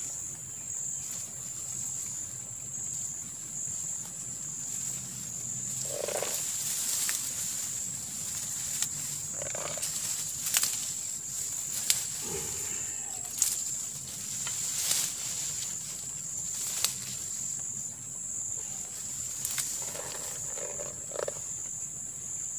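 Insects droning in one steady high-pitched band, with scattered sharp clicks and a few short lower calls.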